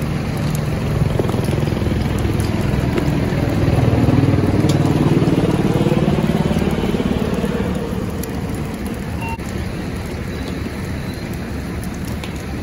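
A fire engine's diesel engine running hard to drive the pump, swelling louder and higher in pitch about four seconds in, then easing back. Scattered crackles and pops from the burning debris come through over it.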